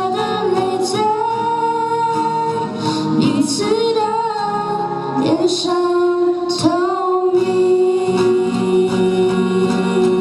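Female voices singing long held, wavering notes over acoustic guitar accompaniment: the close of a song.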